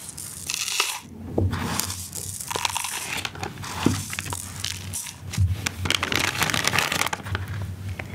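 Kitchen objects being handled: irregular crunching, scraping and crinkling noises with sharp clicks, over a low steady hum.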